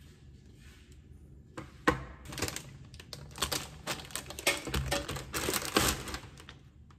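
Crinkly plastic food packaging being handled as a bag of steamed buns is picked up and its plastic tray slid out, crackling in quick bursts. There is one sharp knock about two seconds in.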